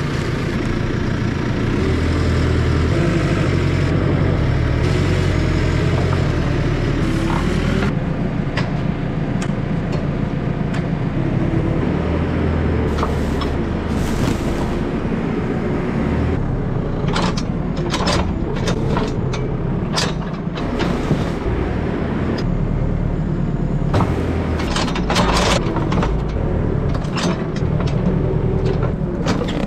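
Tractor engine running steadily throughout. From about eight seconds in the sound changes, and later there are many short sharp clanks and knocks as a front-loader bale grab picks up and moves round bales.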